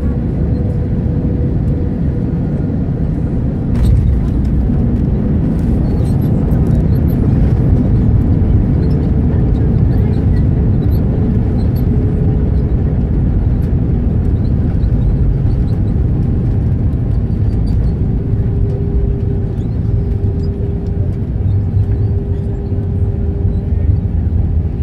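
Jet airliner cabin noise during landing: a sudden thump about four seconds in as the wheels touch down, then a louder engine and air rush with light cabin rattles as the plane slows on the runway. A faint engine tone runs underneath and slowly drops in pitch.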